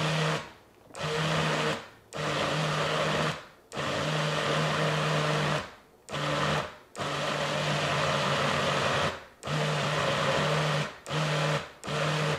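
BlendJet original portable blender pulsing on frozen blueberries, mango and protein powder. It runs in about nine short bursts, each half a second to two seconds long, with a steady motor hum under the whir of the blades. The blades are churning the bottom of the cup while the fruit above is not being drawn down to them.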